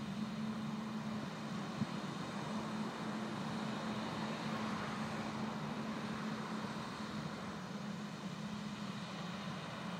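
Tractor pulling a C&N Bug Vac vacuum rig, its engine and fans running as a steady drone, with one small click about two seconds in.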